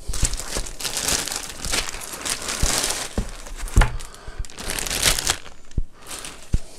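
Thin clear plastic bag crinkling and rustling in uneven bursts as it is pulled off a fabric carrying case, dying down to a few light knocks near the end.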